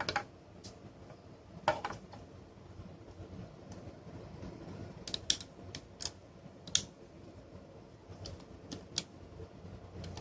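Handling and prying at the small plastic case of a USB Ethernet adapter. Its cover is stuck on, and the work makes irregular sharp clicks and light scrapes, about a dozen in all, with a cluster in the middle.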